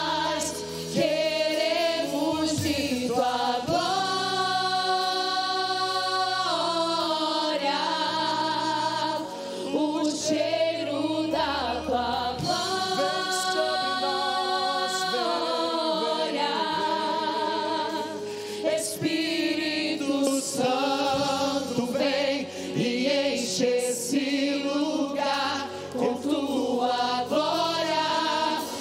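Worship team of several voices singing a Portuguese praise song together over steady low accompaniment, with two long held notes partway through.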